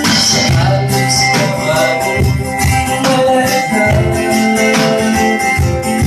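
Live acoustic band music: guitar strumming over shifting low bass notes.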